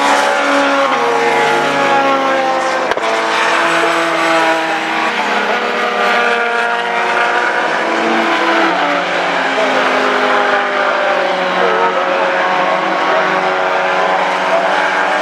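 Several race car engines at once, revving hard and changing gear as the field accelerates away from the start, the pitches climbing and dropping as cars pass.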